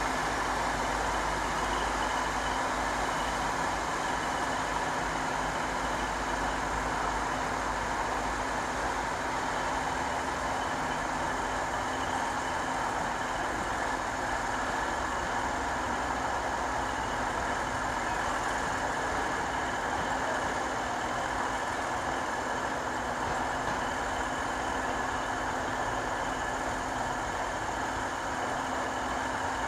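Diesel multiple unit's engine running with a steady drone as the railcar set pulls slowly in along the platform.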